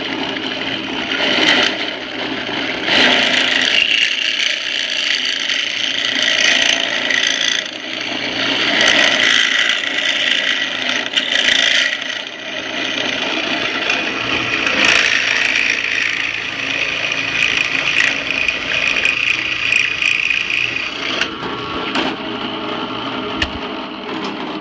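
Power drill with a step bit cutting into an aluminum turn-signal mount, opening the hole out to 11/16 inch. It runs continuously, its loudness rising and falling as the bit bites and eases off.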